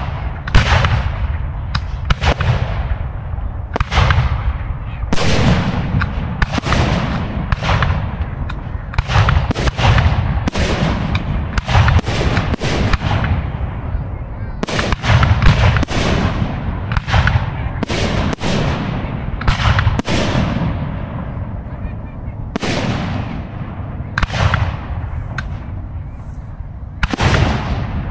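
Aerial fireworks shells bursting in a steady barrage: dozens of sharp booms, at times several a second, each trailing off in echoes over a continuous low rumble.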